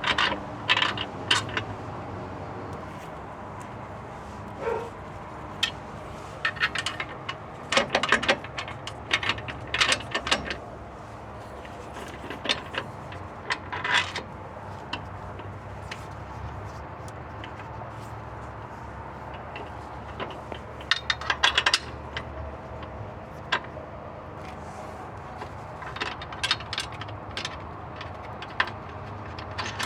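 Socket ratchet clicking in short bursts with metal clinks as the bolts of an exhaust Y-pipe flange are worked, over a steady low hum.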